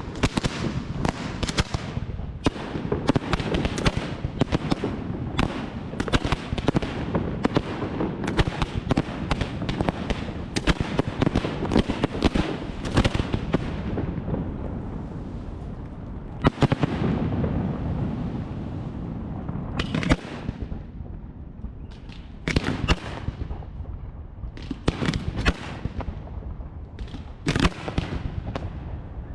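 Fireworks display: a dense, rapid run of bangs and crackling for about the first half, thinning to scattered sharp reports over a low rumble.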